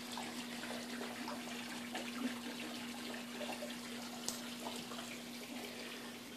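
Outdoor background noise: a steady hiss with a steady low hum underneath, faint scattered ticks, and one brief sharp click about four seconds in.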